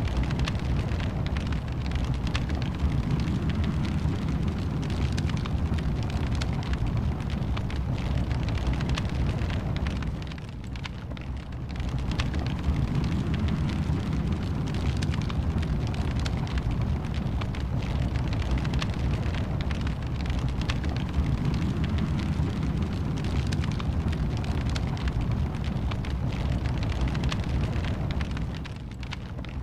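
Wood fire crackling in a fireplace: a steady low rumble of flames with frequent small crackles and pops, dropping briefly twice, about ten seconds in and near the end.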